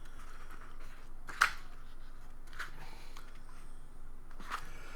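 A few short paper rustles and flicks as the pages of a thick comic omnibus are handled and leafed through, the sharpest about a second and a half in.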